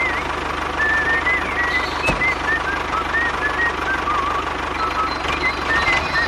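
Small motor of a DIY mini tractor running steadily with a low buzz. Short, wavering high chirps come and go over it, and there is a single sharp click about two seconds in.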